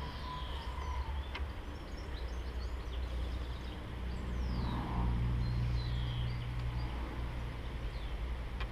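Outdoor background: a low, steady engine hum from a distant vehicle, swelling a little just past the middle, with birds chirping faintly and a couple of faint clicks.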